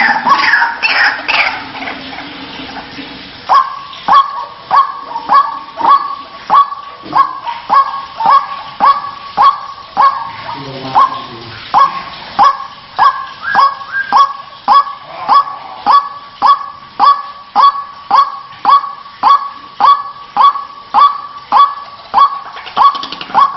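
White-breasted waterhen (ruak-ruak) calling, a harsh honking 'kruak' repeated evenly about twice a second. The steady run of calls starts a few seconds in, after a softer stretch.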